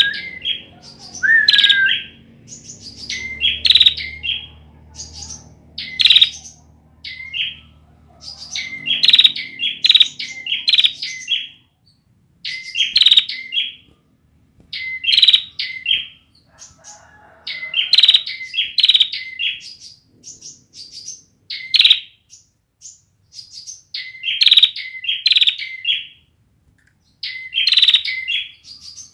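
Bar-winged prinia (ciblek) singing short, chirping, twittering phrases repeated about every two seconds. It is a young bird whose song is not yet fully formed.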